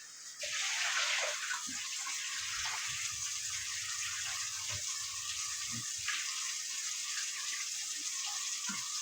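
Steady rush of running water, starting suddenly about half a second in, with a few faint knocks.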